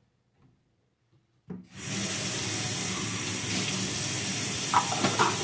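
Kitchen faucet water coming on suddenly about a second and a half in and running steadily into the sink, with two short brighter sounds near the end.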